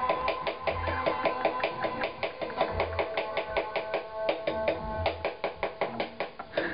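Drumsticks played on a rubber practice pad in a fast, even stream of strokes, some louder than others, working through the skaffadiddle rudiment. A music track with bass notes plays underneath.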